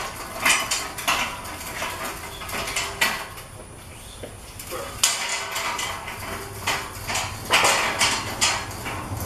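Lengths of square steel tubing rattling and clanking against each other and their wheeled metal rack as it is pushed across concrete, in a string of irregular sharp clanks, busiest near the end.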